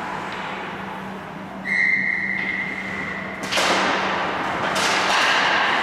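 A referee's whistle blown once, a steady high tone of about two seconds. A loud rush of noise follows it, from the rink and the players.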